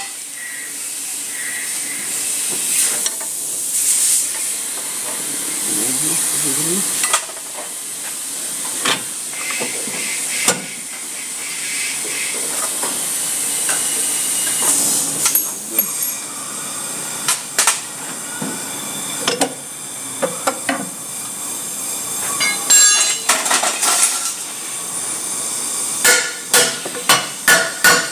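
Scattered metal knocks and clanks from hand tools working on a Toyota Avanza's lower control arm, with a quick run of sharp strikes near the end. A steady hiss runs underneath.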